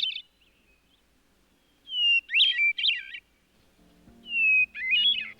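Hermit thrush singing: two full phrases, each a long steady whistled opening note followed by a quick fluttering run of notes, with the tail of an earlier phrase at the start. Soft sustained low musical notes come in about four seconds in, under the last phrase.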